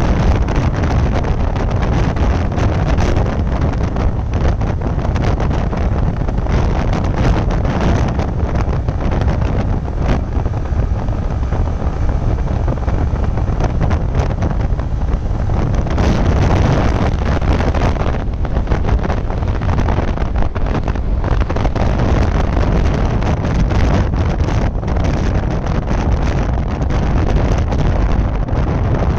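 Heavy wind rush and buffeting on the microphone over a Yamaha R15 V3's 155 cc single-cylinder engine running steadily in sixth gear at around 95–100 km/h.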